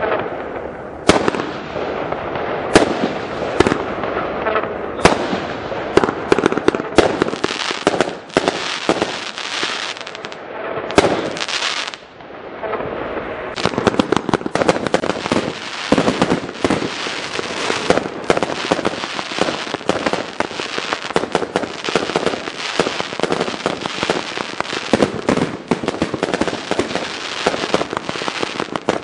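Fireworks going off: separate bangs of shells launching and bursting in the first several seconds, a brief lull, then a dense, rapid run of pops and bangs as several effects fire at once.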